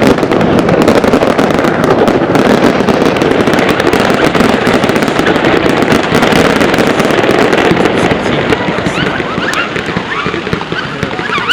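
Many fireworks going off together: a loud, dense, continuous crackle of bangs and pops that thins out somewhat after about eight seconds.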